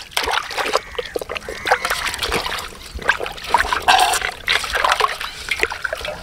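Water splashing and sloshing in a plastic basin as a large fish is rubbed clean by hand and lifted through the water, with dribbles running off it. A louder splash comes about four seconds in.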